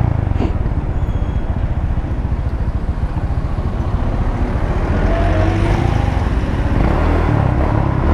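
Motorcycle engine running under the rider, recorded through a helmet microphone, with wind noise over the mic; the engine note rises about five seconds in.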